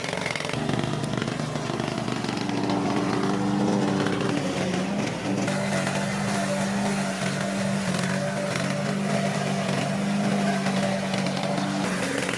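Lawn mower engine running steadily at a constant pitch.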